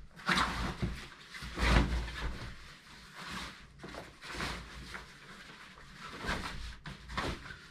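Rustling and scraping of a large nylon backpack being packed and its top and straps pulled, with a few dull thumps, the loudest about two seconds in.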